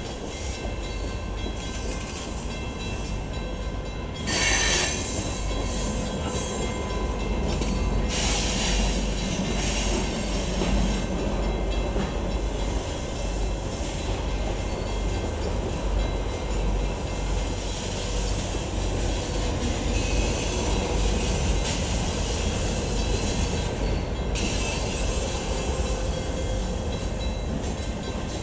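Freight cars of a manifest train rolling past: a steady rumble of wheels on rail with faint, thin squealing tones. There is a brief louder burst about four seconds in, and the sound swells louder again about eight seconds in and near the end.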